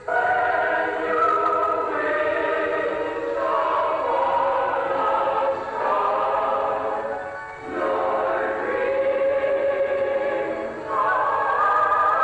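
Choir singing a slow Christmas song in long held chords that change every two to three seconds.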